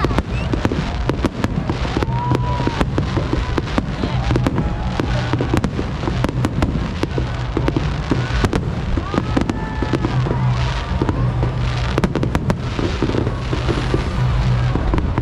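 Fireworks finale: a dense, irregular run of shells bursting, bangs and crackles coming several times a second without letup.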